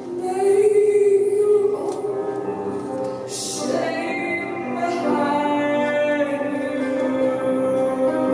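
A woman singing slow, long held notes into a microphone over sustained piano chords, live.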